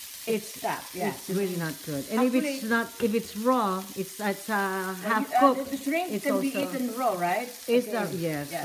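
Large shrimp sizzling in hot vegetable oil in a frying pan, with a woman talking continuously over it.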